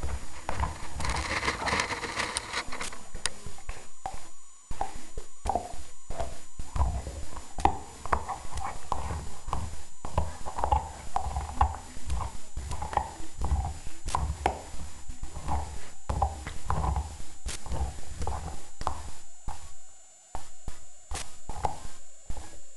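Bull terrier chewing and gnawing a bone right at the microphone: irregular crunches and clicks of teeth on the bone, a few a second, with a louder rasping stretch in the first few seconds.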